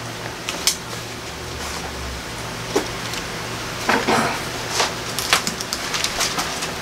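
Bible pages being turned and handled: scattered paper rustles and light taps, busier in the second half, over a steady low hum.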